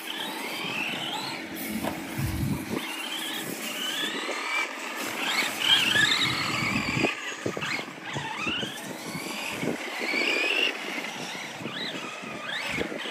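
Several electric RC cars running on a track, their motors whining in overlapping sweeps that rise and fall as they speed up and slow down. A few sharp knocks come in between.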